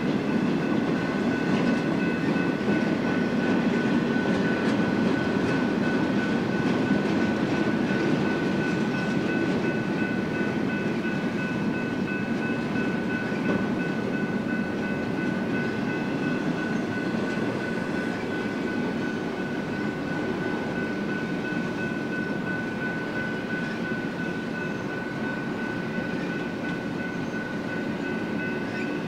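Double-stack intermodal freight train passing at speed: steady wheel-on-rail noise from the container well cars, with a steady high whine over it, easing off slightly in the second half.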